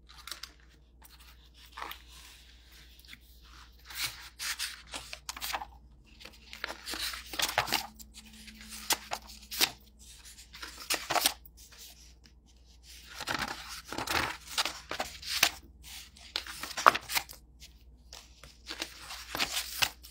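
Paper pages being leafed through and handled, rustling and crinkling in short, irregular bursts.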